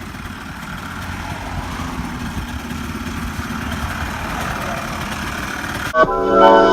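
ATV engine running, growing gradually louder. About six seconds in it cuts off abruptly to piano-like keyboard music.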